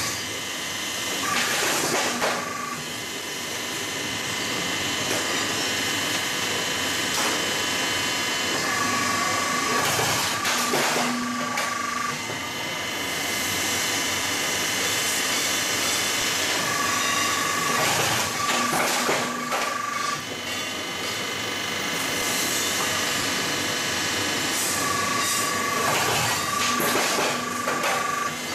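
Roof-sheet roll forming machine running under steady mechanical noise and hiss, in a repeating cycle: about every eight seconds a steady higher tone comes in with a few clanks as the exit cutter shears off a panel, then the rolling tone resumes. Four such cycles.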